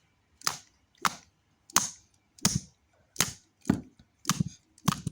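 A steady series of about eight sharp smacks, roughly one every two-thirds of a second, each with a short dull thud underneath.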